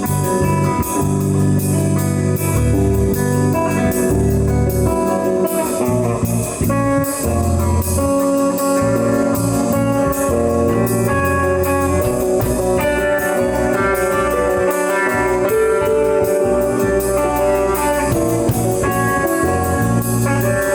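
A rock band playing an instrumental passage live: electric guitar lines over sustained bass notes, with drums keeping time on cymbals. It is recorded through a camera's built-in microphone.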